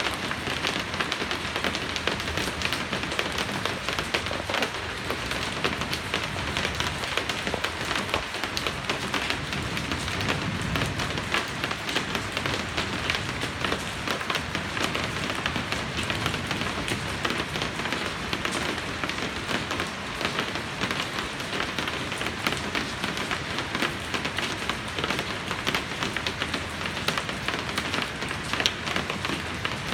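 Steady rain falling, a dense patter of countless drops that keeps on without a let-up.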